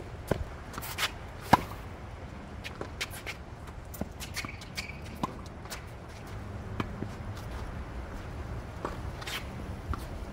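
Tennis rally on a hard court: sharp pops of rackets striking the ball and the ball bouncing on the court, with shoes scuffing between shots. The loudest pop comes about one and a half seconds in.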